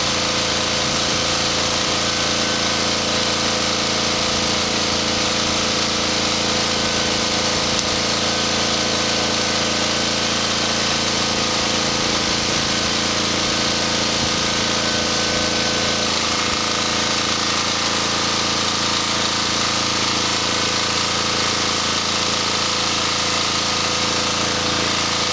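Diesel generator engine running steadily under an electrical load of about 1500 watts, its tone shifting slightly about two-thirds of the way through.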